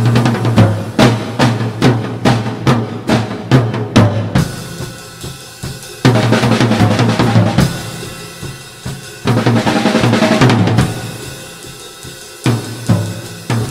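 Drum kit solo: rapid snare and bass drum strokes for about four seconds, then three loud crashes, each left to ring and fade, before quick drum strokes start again near the end.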